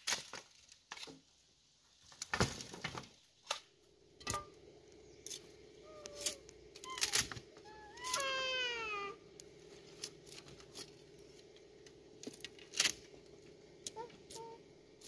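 Long bamboo poles knocking and clattering against one another as they are lifted and set down, in scattered sharp knocks. A single drawn-out, falling animal-like call comes about eight seconds in.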